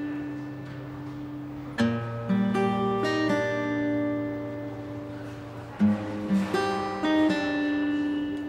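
Background music of slow plucked notes that ring out and fade over a held low note, with a new phrase starting about two seconds in and another near six seconds.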